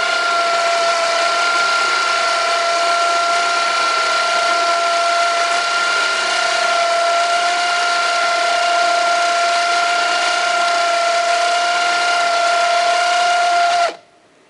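Motor of a kayak launcher running steadily with a high gear whine as it moves the kayak's cradle along the rail track, then cutting off abruptly near the end.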